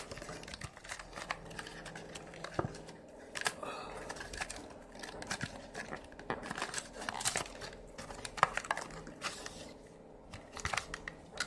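Adhesive tape being peeled and torn off a small paperboard box by hand, with irregular rustles and clicks as the box and its flaps are handled.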